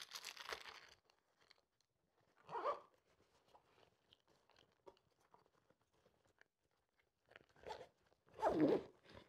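Zipper on the top pocket of an Arc'teryx ski touring backpack being zipped, with the pack's nylon fabric rustling as it is handled in a few short bursts, the loudest near the end.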